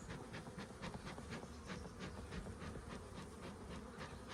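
Honeybees buzzing around their hive in a steady hum, with a quick run of faint ticks, about five a second.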